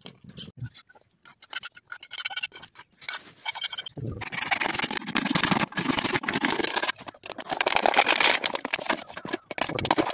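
A large knife sawing through a plastic water bottle, the thin plastic crackling and scraping under the blade in quick, uneven strokes. It starts about four seconds in, after a few faint clicks.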